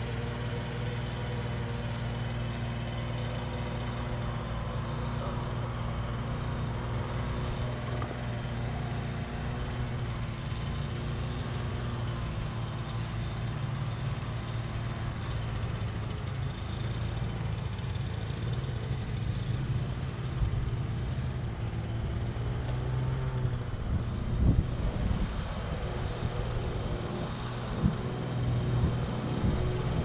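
Parrot Bebop 2 quadcopter's motors and propellers humming steadily in flight, a droning tone with a higher whine above it that drifts a little in pitch. A few low thumps come in the second half.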